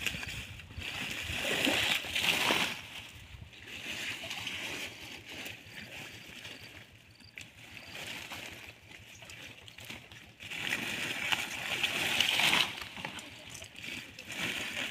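Hands splashing and sloshing in shallow muddy pond water among water hyacinth, in irregular bursts, loudest about one to three seconds in and again from about ten to thirteen seconds.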